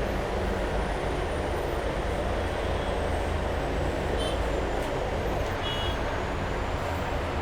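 Steady rumbling background noise, with a faint thin high whine and a few faint short chirps over it.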